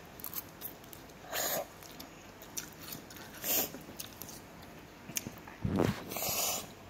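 A child slurping up instant noodles and chewing: two short slurps, then a longer, louder one near the end, with small clicks between.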